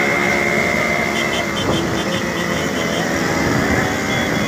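Several motorcycle engines running close by while riding, mixed with wind noise on the microphone. A quick run of short high-pitched chirps comes through between about one and three seconds in.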